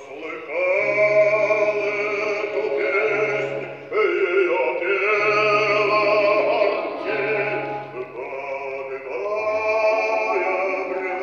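Background music: voices singing long held chords in an operatic or choral style over a low bass line, the chords changing every second or two.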